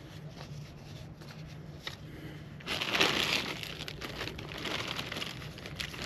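Crinkling, rustling handling noise, like plastic or fabric being rubbed, that starts suddenly and loudly about two and a half seconds in and goes on after a quieter first half with a few faint clicks.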